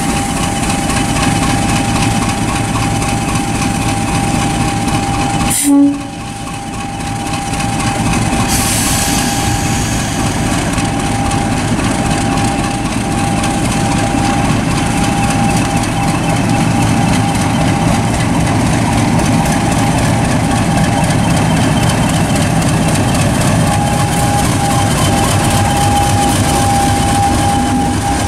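A British Rail Class 50 diesel locomotive running its English Electric 16-cylinder engine as it draws slowly past, with a steady high whine over the deep engine note. There is one brief loud blip about six seconds in.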